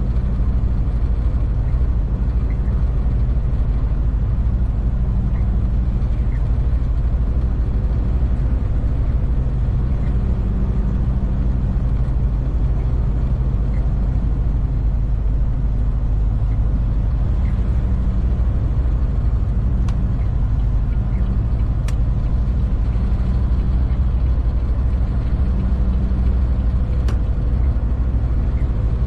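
Heavy truck's diesel engine and road noise heard from inside the cab while cruising: a steady low drone with no change in speed, and a few faint sharp clicks in the second half.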